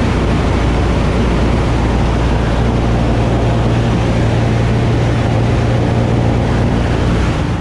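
Cabin noise inside a PBY-5A Canso flying boat in cruise: the steady, loud drone of its two Pratt & Whitney R-1830 Twin Wasp radial engines and propellers over rushing airflow, starting to fade out at the very end.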